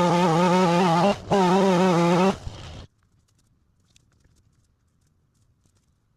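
Two-stroke chainsaw running at full throttle while cutting, in two long bursts with the pitch wavering under load. It drops back after about two seconds and cuts out about three seconds in, leaving near silence.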